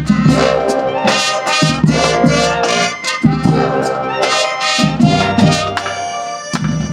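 High school marching band playing, brass section over drums, in repeated short accented blasts.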